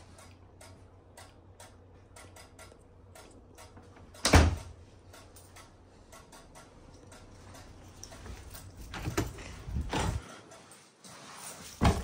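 A door being handled: a sharp knock about four seconds in, a few more knocks and rattles around nine to ten seconds and another knock near the end, with faint scattered clicks between them. A low hum underneath stops shortly after ten seconds.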